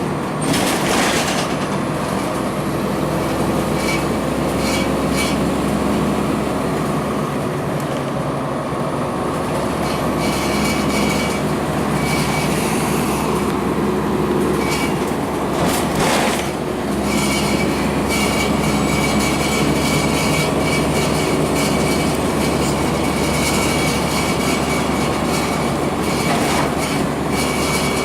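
A 2002 Blue Bird CS transit bus under way, heard from inside: its Cummins ISC diesel engine runs steadily under road noise. On-and-off rattling comes and goes, with a sharp jolt about a second in and another near the middle.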